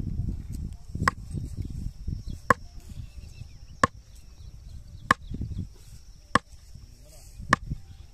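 Sharp knocks, six of them, one about every second and a quarter, each with a short ring. Underneath is a low rumble, loudest at the start, and a steady high-pitched drone.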